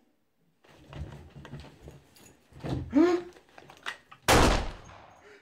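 Rustling and knocking from people moving about and handling things at a table, with a brief rising pitched sound about three seconds in and a loud, noisy half-second burst about a second later.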